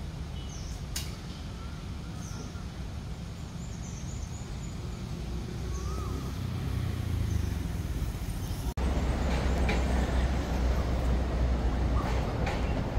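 Steady low rumble of road traffic, with a few short bird chirps above it. About nine seconds in the sound drops out for an instant at an edit and comes back as a louder low rumble.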